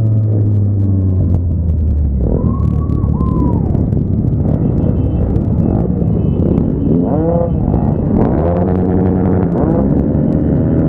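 Motorcycle engines: the riding bike's engine note drops as it rolls off the throttle and slows to a stop. Then several motorcycles idle together, with other riders blipping their throttles in short rising-and-falling revs.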